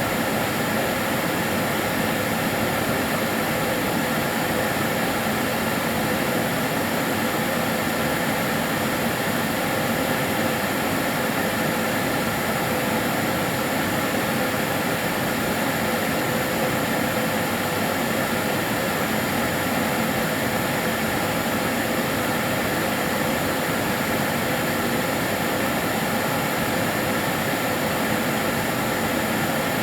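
Kärcher DS 6 Premium water-filter vacuum cleaner running continuously: a steady, even rushing noise from the motor and airflow, with a few faint constant tones and no change in speed.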